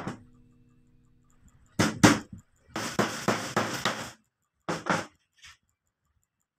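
Hammer driving small nails into a clamped wooden frame corner. Two hard strikes, then a quick run of lighter taps, then two more strikes and a last faint tap.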